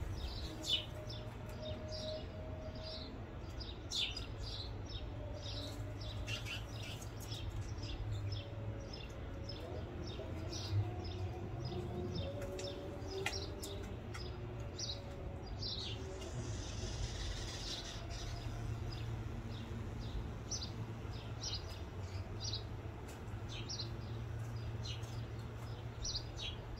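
Small birds chirping repeatedly, short high chirps scattered throughout, over a steady low hum.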